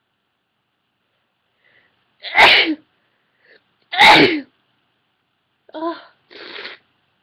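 A woman sneezing twice, loud and sudden, about a second and a half apart, after sniffing pepper to bring the sneezes on. Two shorter, quieter breathy sounds follow near the end.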